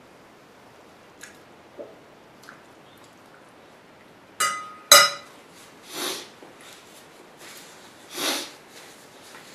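A metal fork ticking against a ceramic plate, then set down on it with two sharp ringing clinks about half a second apart, the second the loudest. Two short rustles follow from the hands.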